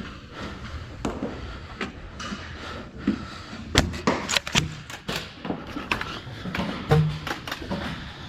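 Foam-dart skirmish: a scatter of sharp clicks and thuds from blasters firing and darts striking walls and cover, coming faster in the second half.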